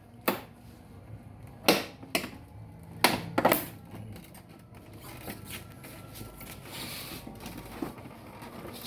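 Sharp clicks and knocks of hands and tools working on a motor scooter's horn fitting, about five in the first three and a half seconds. After that, only faint rustling and hiss.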